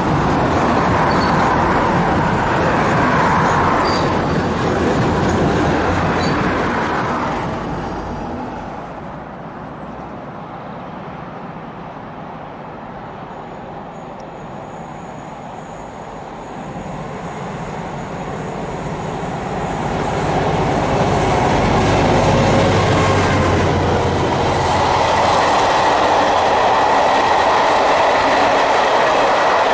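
Diesel-hauled passenger train passing close by: the locomotive's engine is heard approaching, then the coaches roll past with their wheels clattering over the rail joints. A first loud rumble fades out about seven seconds in.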